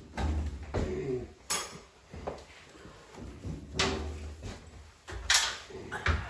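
Scattered knocks and clatter of tools and hardware against a wooden kitchen cabinet as it is being fastened to the wall, with a low rumble between the knocks.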